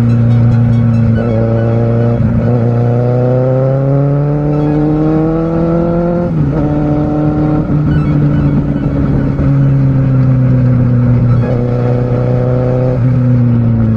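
Kawasaki Z750R's inline-four engine heard on board while riding: the revs climb steadily through a gear for about four seconds, drop sharply at an upshift about halfway through, then run at a steady, slowly easing engine speed.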